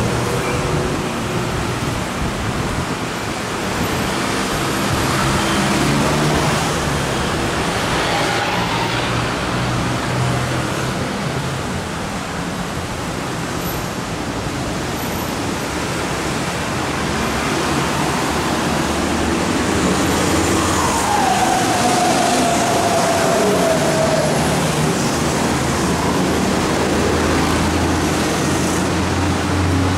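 Yellow Line monorail train running through the station, a steady rumble mixed with road traffic, with an electric whine that falls in pitch about two-thirds of the way through.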